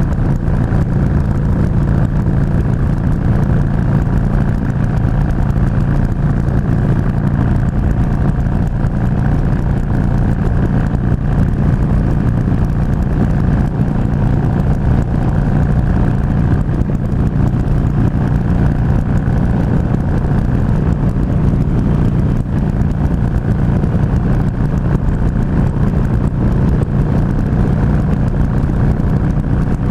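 Harley-Davidson Sportster 883R's air-cooled V-twin engine running at a steady cruising speed on the highway, its pitch holding level throughout.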